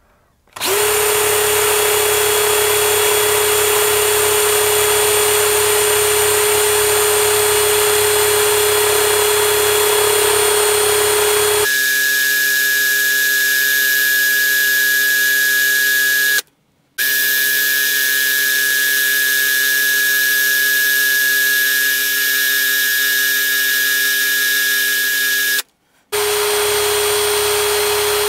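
Electric drill running steadily in reverse, spinning the core wires while fine 36-gauge Ni80 wire is wrapped around them for a Clapton coil. Its pitch changes about twelve seconds in, and it cuts out briefly twice.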